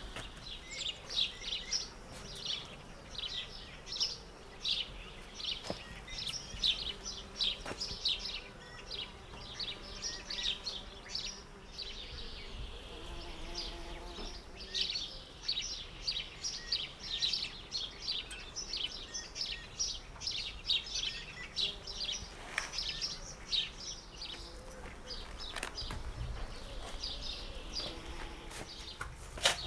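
Small bird-shaped toy whistle, held in the mouth, chirping in quick high twitters that come in clusters with brief pauses.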